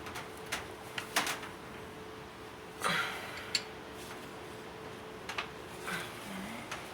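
Scattered metal clicks and clinks of a 12 mm open-end wrench working the brake caliper bolts, with a longer, louder scrape about three seconds in, over a faint steady hum.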